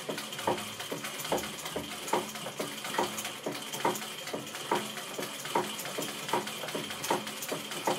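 A vintage 1920s Singer 15K treadle sewing machine stitching steadily, with a rhythmic mechanical clatter of about two clicks a second and lighter ticks between.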